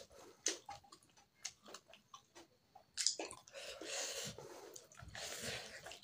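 A person chewing a mouthful of rice and pork curry eaten by hand, close to the microphone. Small scattered mouth clicks come first, then louder, steadier chewing from about halfway through.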